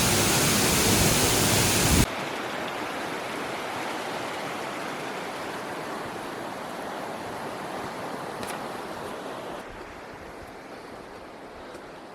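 Waterfall and stream water rushing as a steady noise, loud for the first two seconds, then cutting abruptly to a quieter rush that drops again about ten seconds in.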